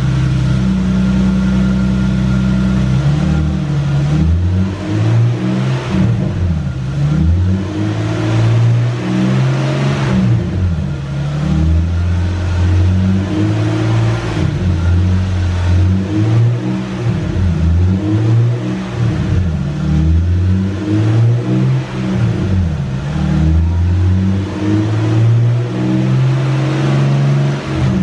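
Lexus IS300's 2JZ straight-six engine running and being revved repeatedly, its pitch rising and falling every second or so.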